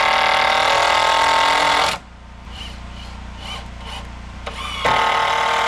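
Power screw driver running screws into a wooden ribbon board: a steady motor whine for about two seconds that stops, then starts again near the end for the next screw.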